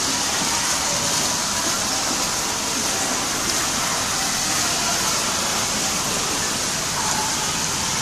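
Torrential cloudburst rain pouring down steadily, a dense even hiss of falling water with no let-up.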